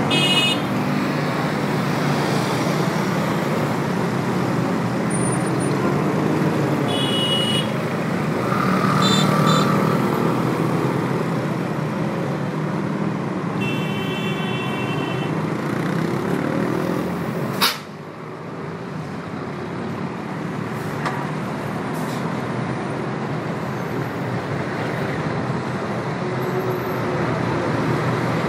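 Steady road traffic on a busy multi-lane avenue: cars, buses and motorcycles running and passing. A few short high-pitched tones sound over it. About two-thirds of the way through there is a single sharp click, after which the traffic is briefly quieter.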